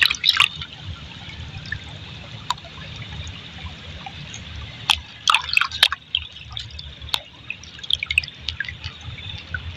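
Water dripping and splashing as a hand scoops wet sand and gravel out of a shallow stream, with scattered small splashes that cluster about five to six seconds in, over the steady low rush of the stream.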